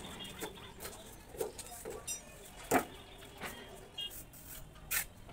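Scattered knocks and taps of hand-plastering work, a steel trowel against the mortar pan and wet cement plaster slapped onto a wall. The sharpest knock comes a little before the middle, another near the end.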